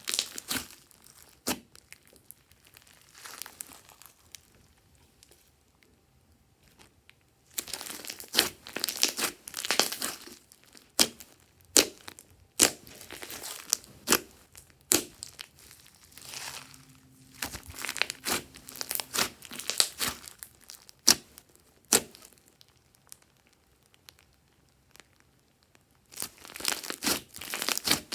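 Hands squishing and stretching glossy slime: sticky crackling clicks and pops, coming in busy spells separated by quieter pauses.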